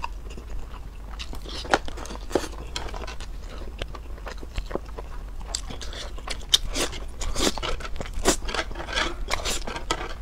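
Close-miked eating sounds: biting and chewing a grilled prawn, then slurping a mouthful of dark spicy noodles. The slurps and chews come thick and fast in the second half.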